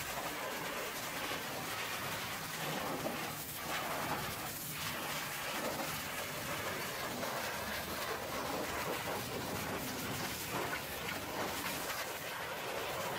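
High-pressure water jet from a pressure washer wand blasting against a truck's metal fuel tank: a steady hiss of spray.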